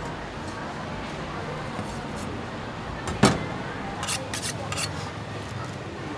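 Butcher's knife being honed on a sharpening steel: a sharp metallic clink about three seconds in, then four quick scraping strokes of blade along steel.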